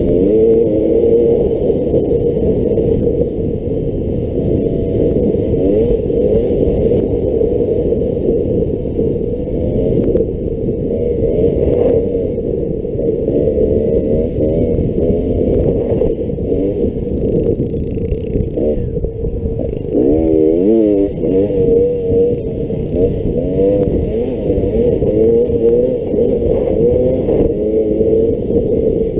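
2018 Beta XTrainer two-stroke dirt bike engine running under way, its pitch rising and falling again and again as the throttle is worked, over a constant low rushing noise at the helmet-mounted microphone.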